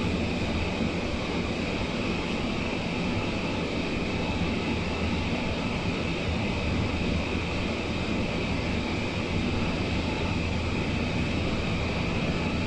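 Steady cabin noise inside a moving BART airport train on an elevated guideway: a constant low rumble with a steady high whine over it.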